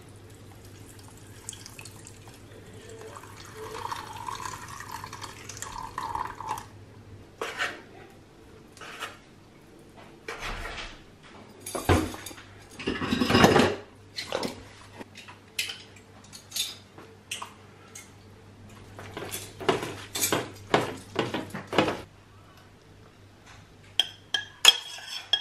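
Kitchen cooking sounds: a stainless saucepan, ladle and bowls clinking and knocking, with liquid pouring and a short rush of water about halfway through.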